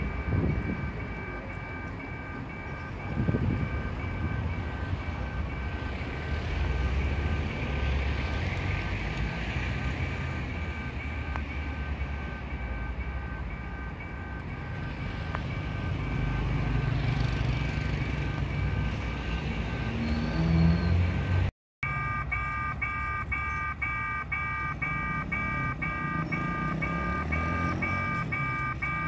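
Level-crossing warning alarm sounding a repeating electronic beep made of several tones together, over a low rumble of engines. The alarm breaks off briefly about two-thirds through, and another crossing's alarm then beeps about twice a second.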